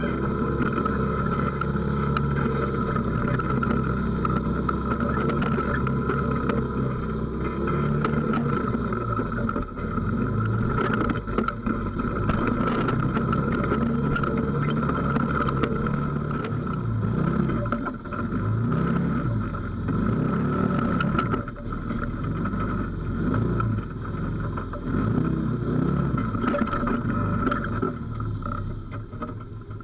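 2018 Textron Havoc X side-by-side's engine running under load as it crawls over rocks, revs rising and falling again and again. Scattered knocks and clicks from the machine jolting over the rocks.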